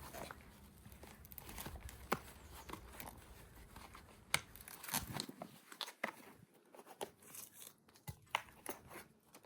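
Irregular crackling, tearing and snapping of a plastic plant pot being cut and torn open around a root-bound plant.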